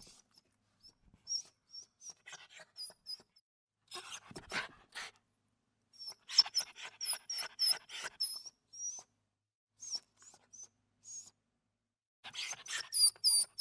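Small dog whimpering: a series of short, very high-pitched squeaky whines, broken up by short breathy puffs and brief pauses.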